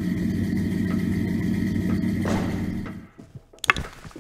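Off-road truck's engine idling with a deep steady rumble, a whoosh about two seconds in. The rumble fades out near three seconds, followed by a few sharp clicks.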